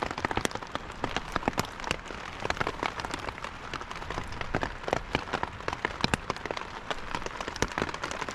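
Heavy rain falling on a tarp overhead: a dense, uneven spatter of drops hitting the fabric.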